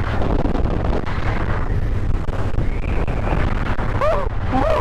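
Cruiser motorcycle running at a steady road speed, with wind rushing over the microphone.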